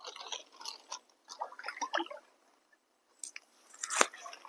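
Hands rummaging in shallow water and mud to pick up snails: a run of small irregular wet squelches, splashes and clicks, loudest about four seconds in.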